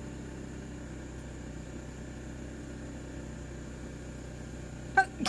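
A steady low background hum, then near the end a person's sneeze: a short sharp catch of breath followed by a loud burst of air.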